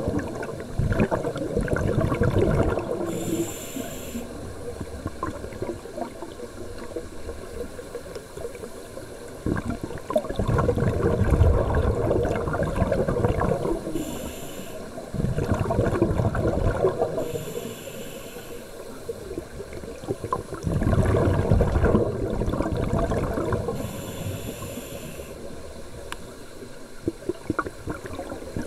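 Scuba regulator breathing heard underwater: a short high hiss of the inhale through the regulator, then a longer gurgling burst of exhaled bubbles, over about four breaths.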